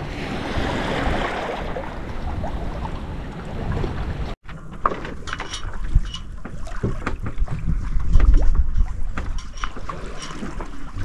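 Sailboat rushing through the water in a building swell, with wind and wash making an even rush. A sudden cut about four seconds in gives way to quieter sound with scattered clicks and knocks and a low rumble.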